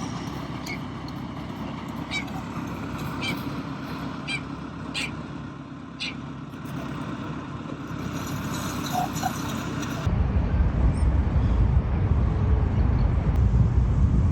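Steady hum of distant city traffic with a handful of short, high chirps in the first few seconds. About ten seconds in, wind starts buffeting the microphone with a loud low rumble.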